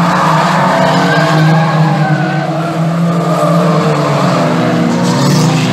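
Several banger racing cars' engines revving hard round the oval, their pitches rising and falling over one another, with tyres skidding.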